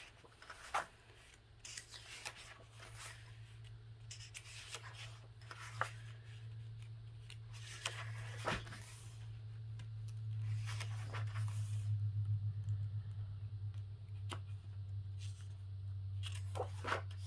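Pages of a coloring book being turned and handled: repeated short paper rustles and flicks, over a steady low hum that grows louder from about three seconds in.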